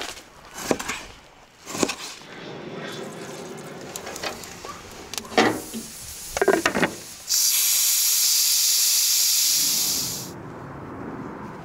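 Several knocks and clatters, then steam hissing out in one steady blast that starts suddenly and dies away after about three seconds.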